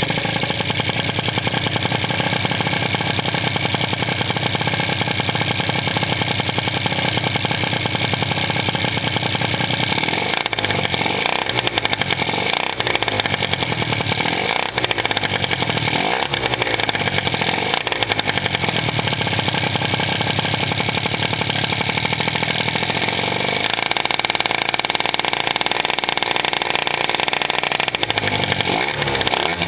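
Two-stroke Malaguti Firefox scooter engine with a Polini Evo exhaust, idling steadily, then blipped on the throttle several times in a row near the middle, each rev rising and falling back, before settling to a steady run again.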